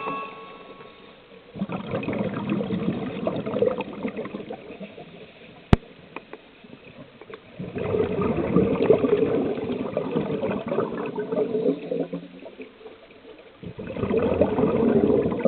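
Scuba divers exhaling through their regulators underwater: three long rushes of bubbling a few seconds apart, one per breath, with a single sharp click about six seconds in.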